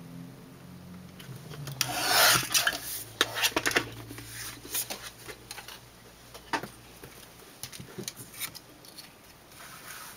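Paper trimmer's sliding blade cutting a strip of cardstock: a rasping sweep about two seconds in. Then scattered clicks and rustles as the paper strip is handled.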